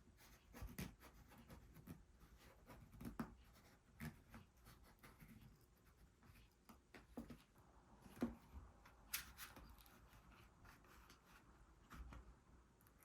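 Faint, scattered clicks, taps and scrapes of small repair tools and fingers handling an iPad mini 5, with a brief rubbing scrape about nine seconds in.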